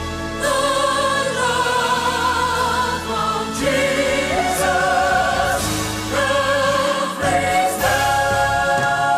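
Gospel vocal group singing in harmony over a low instrumental accompaniment, holding long notes with vibrato; the chord changes every second or two, and a new chord starts near the end and is held.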